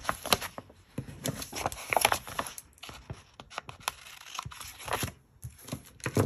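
Scissors snipping a paper sticker flush along the edge of a planner page, among crisp paper rustling and handling. A sharper click comes near the end.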